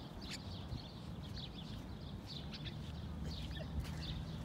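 Small birds chirping in the trees, many short high chirps one after another, over a low steady hum.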